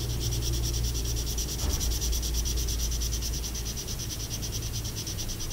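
Felt-tip marker scratching on paper in rapid, even back-and-forth strokes while colouring in a small area.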